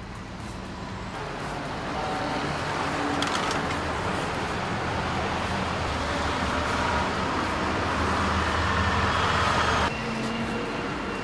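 A convoy of logging trucks loaded with timber driving past: steady engine and tyre noise that slowly grows louder, then drops suddenly about ten seconds in.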